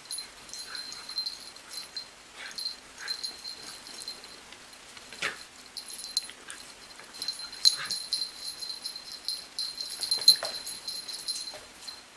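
Two young puppies play-wrestling, with short high-pitched yips and whimpers and scuffling through the play.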